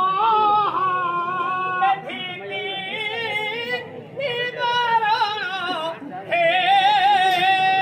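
A male folk singer singing a Karamsani (Karma) song in high, sustained phrases with a strong vibrato, about two seconds each, the last one held long. No drums are heard under the voice.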